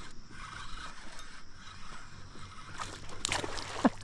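Spinning reel being cranked as a small smallmouth bass is reeled in, with splashing as the fish thrashes at the surface near the end.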